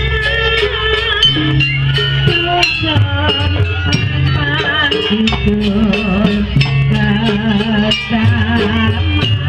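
Live music from a Banyuwangi barong troupe's ensemble: steady bass notes change every second or so under rapid percussion strikes, with a wavering melody line on top.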